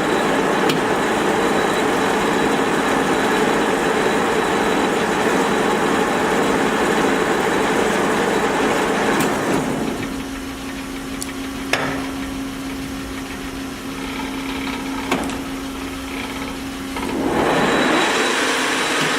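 1941 Monarch Model 14 WAA geared-head lathe running in its high speed range, the headstock gear train whirring with a steady hum. About nine seconds in it drops to a quieter steady hum with two sharp clicks. About two seconds before the end the full gear noise returns.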